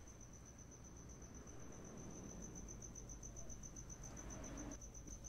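Faint cricket chirping: a steady, high, rapidly pulsing trill over low room hum.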